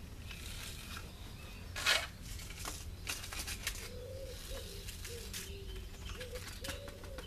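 Paper seed packet crinkling and rustling as seeds are shaken out, with one louder rustle about two seconds in. From about four seconds in, a pigeon coos in a repeated low, wavering phrase.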